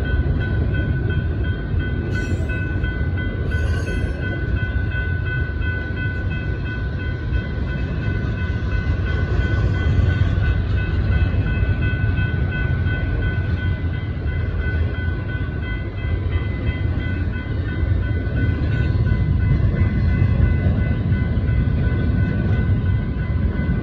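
Double-stack intermodal freight cars rolling steadily past a grade crossing, a continuous heavy rumble of steel wheels on the rails, with the crossing's warning bell ringing rapidly over it and a couple of brief metallic clicks a few seconds in.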